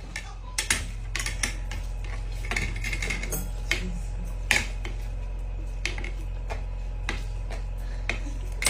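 Forks or spoons clinking irregularly against bowls as two people eat instant noodles, with a steady low hum underneath.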